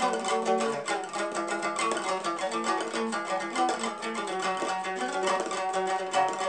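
A small wooden long-necked lute strummed with fast, even strokes, playing a melody over sustained ringing strings, with no singing.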